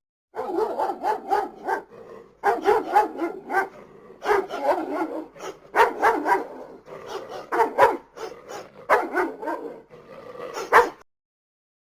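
Dog barking in quick runs of several barks each, with short pauses between the runs.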